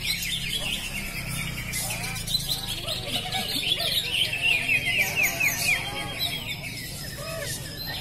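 Several caged greater green leafbirds (cucak hijau) singing together in contest, a dense, unbroken stream of quick high chirps and trills.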